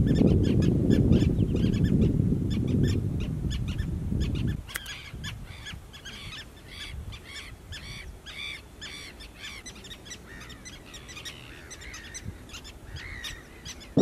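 A common tern colony calling: many short calls overlapping, one after another, all through. A loud low rumble lies under them for the first four and a half seconds and then stops abruptly.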